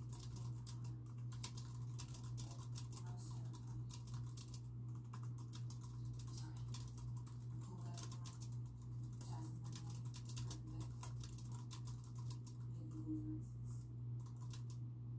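Typing on a computer keyboard: a quick, irregular stream of key clicks with brief pauses, over a steady low hum.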